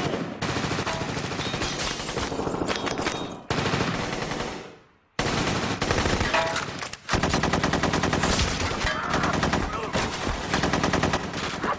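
Rapid gunfire, shot after shot in quick succession. It breaks off for a moment about five seconds in, then starts up again just as fast.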